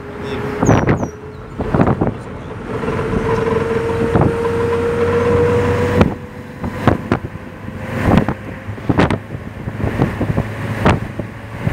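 Car driving along a road, heard from inside: steady engine and road rumble with repeated sudden thumps of wind buffeting the microphone. A thin whine rises slightly in pitch for a few seconds in the middle.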